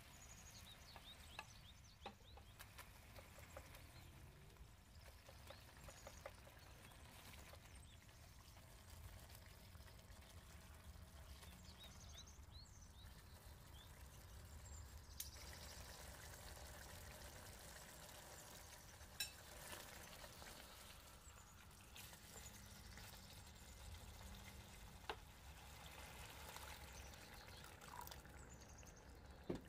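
Faint kitchen sounds near silence: a low steady hiss with a few scattered light clicks.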